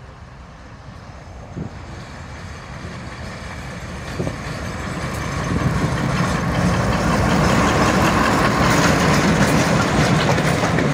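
Class 35 Hymek diesel-hydraulic locomotive D7076 approaching and passing with a train of coaches, its Maybach V16 engine growing steadily louder. Wheels clack over the rail joints as it goes by in the later seconds.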